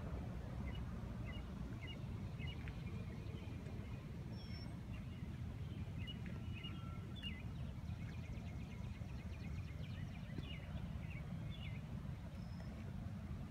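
Pontiac Trans Am WS6's 5.7-litre LS1 V8 idling steadily, with birds chirping over it throughout.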